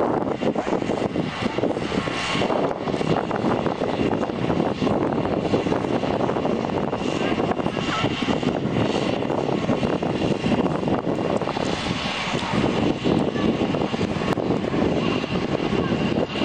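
Wind blowing across the microphone: a steady, loud rushing noise.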